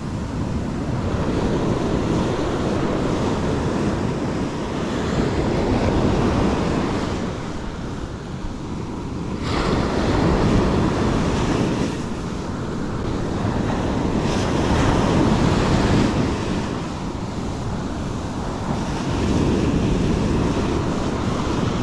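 Ocean surf breaking and washing up the beach, swelling and ebbing every few seconds, with wind buffeting the microphone.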